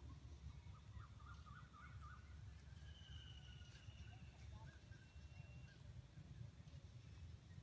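Near silence with a low steady rumble and faint, scattered bird calls: a short warbling call in the first second and a thin held whistle about three seconds in.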